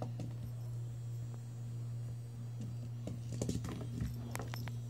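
A cat batting a small light-up toy mouse around on a tile floor: a cluster of light taps and clicks about three seconds in, over a steady low hum.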